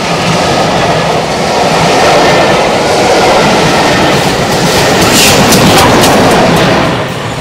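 Steam-hauled train running close past, its wheels clicking over the rail joints, with a run of sharp clicks in the second half; the sound starts to fall away near the end as it passes.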